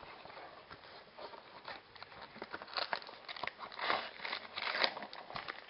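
Trading-card blaster box being opened by hand: irregular crinkling, crackling and tearing of its packaging, with denser bursts about three, four and five seconds in.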